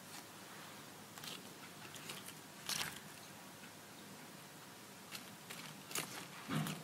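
A series of irregular short crunches and clicks close to the microphone, the loudest about three seconds in and another, fuller one near the end.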